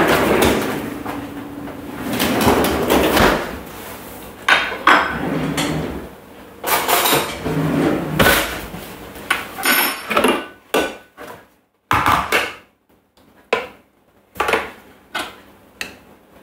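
Kitchen handling noises. In the first few seconds there is sliding and rustling as a saucer is fetched from the freezer. After that come a string of separate knocks and clatters as a saucer is set down and the Thermomix lid and stainless steel mixing bowl are taken off, with a spoon against the bowl near the end.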